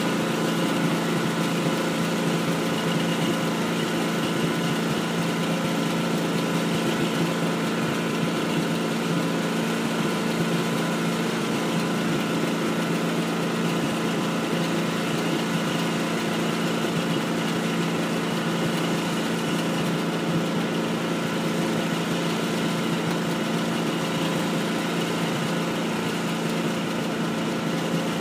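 Heavy truck's diesel engine running steadily at low speed, holding one constant pitch with no revving.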